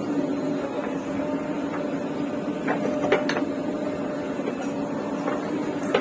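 JCB 3DX backhoe loader working its digging arm: the diesel engine runs steadily under load with a steady hum, broken by a few sharp knocks from the bucket and linkage around three seconds in and again near the end.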